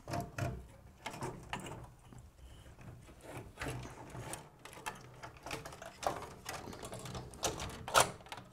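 Irregular light clicks and knocks of a motherboard being handled and set into a computer case onto its standoffs, with the sharpest knock near the end.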